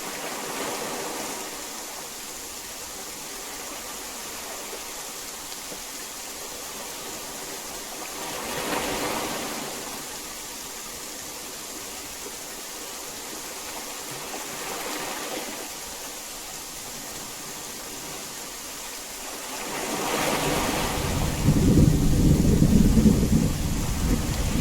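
Heavy rain falling with a steady hiss that swells briefly a few times, then a loud, low rolling rumble of thunder builds about 20 seconds in and keeps going.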